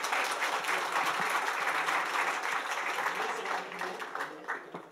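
Audience applauding: many hands clapping in a dense patter that thins out and dies away near the end.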